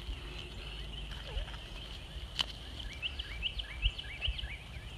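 Outdoor field ambience with a low rumble and a steady high-pitched hum; from about three seconds in, a small bird sings a quick run of short rising chirps.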